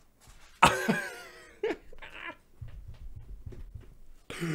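A man's wordless exclamations of amazement: a sudden loud gasp-shout about half a second in, then shorter breathy cries and low chuckling.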